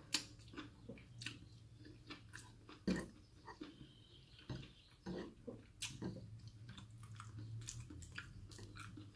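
A person chewing food close to the microphone: irregular soft mouth smacks and clicks, over a faint steady low hum.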